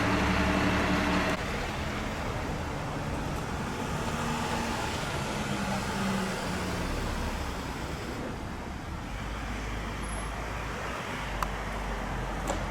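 Road vehicle engines running amid street traffic noise: a louder engine for the first second or so, then a steadier, quieter rumble, with a couple of faint clicks near the end.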